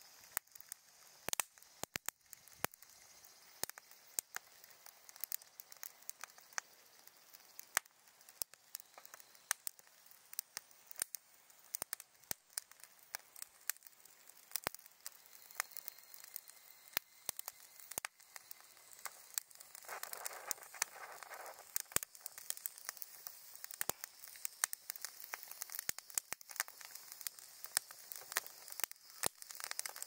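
Newly lit wood campfire of split kindling, twigs and pine cones crackling in a metal fire stand as it catches, with sharp irregular pops throughout over a faint hiss. A brief rushing noise about two-thirds of the way through.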